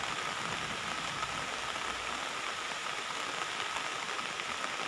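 Steady rain falling, a continuous even hiss.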